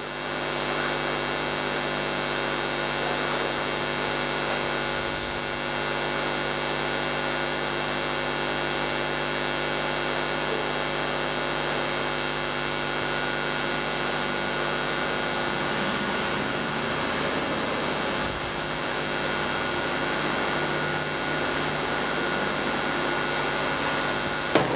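Soundtrack of a horror film montage played over the hall's speakers: a steady, dense drone of many held tones with hiss, which stops abruptly near the end.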